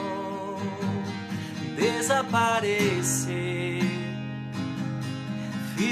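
A Portuguese worship song: acoustic guitar strumming under a male voice that sings long, bending held notes.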